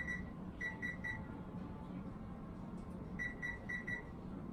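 Oven control panel beeping as its keypad buttons are pressed to set the oven to preheat: one beep, then three quick beeps about half a second later, then four quick beeps just after three seconds in.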